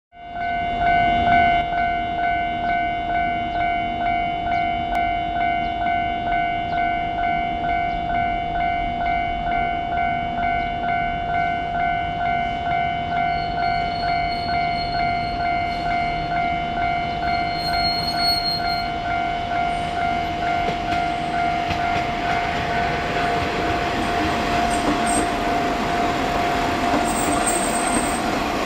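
Japanese railway level-crossing alarm ringing, an even electronic ding-ding about one and a half times a second. From about two-thirds of the way in, a KiHa 20 diesel railcar passes close by, and the rumble of its engine and wheels rises over the alarm.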